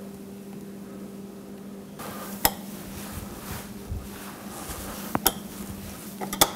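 A few sharp clicks and knocks, one about two and a half seconds in, two close together a little after five seconds, and the loudest near the end, over a steady low hum.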